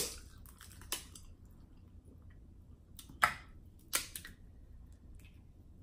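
Crab cluster shells cracked and picked apart by hand: a few sharp separate cracks, the loudest a little after three seconds in.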